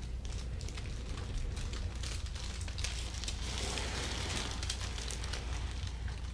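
Soft rustling and crackling with many small ticks, over a steady low hum.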